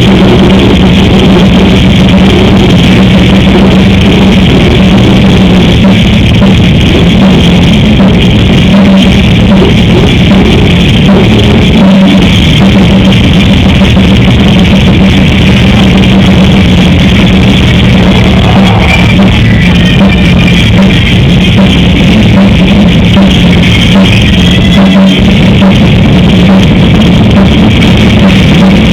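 Loud live death metal/grindcore band playing: distorted guitars and bass with fast, dense drumming, without a break.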